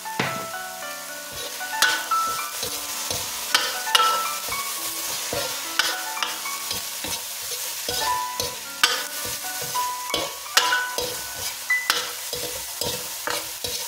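Ground beef and minced garlic sizzling in a hot pan while a metal spoon stirs them, with frequent scrapes and clinks of the spoon against the pan, some leaving a brief metallic ring.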